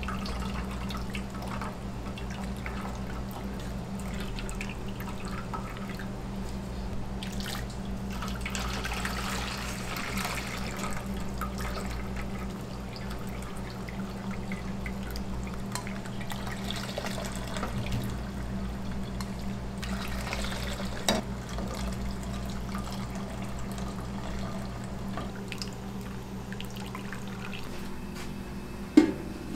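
Meat stock dripping and trickling through a mesh strainer into a steel bowl as a wooden spoon presses the boiled solids, over a steady low hum. A sharp knock near the end.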